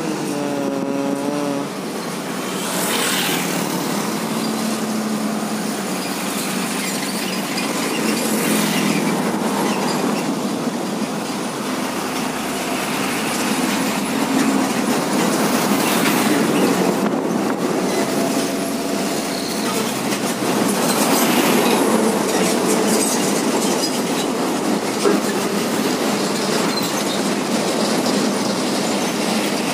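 Heavy diesel trucks passing close by on a highway: a steady, loud rush of engine and tyre noise that swells several times as trucks go past.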